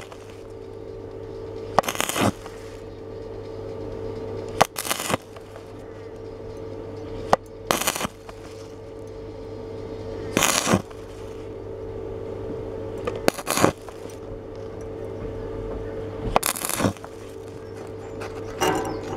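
Stick-welding arc struck in short bursts on 2.2 mm steel, about seven times at even intervals of two to three seconds: each burst a sharp crack and half a second of crackling, the stop-and-start way of filling a large hole in thin metal without burning through. A steady electrical hum runs underneath.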